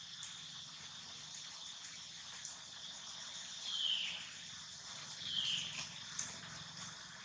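A steady, high-pitched drone of insects, with two short calls falling in pitch from an animal, about four seconds in and again about a second and a half later.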